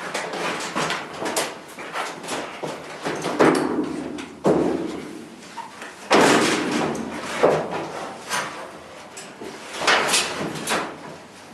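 A run of knocks, bumps and scraping as a heavy kitchen appliance is shifted and set into place, with the loudest bangs about three and a half, six and ten seconds in.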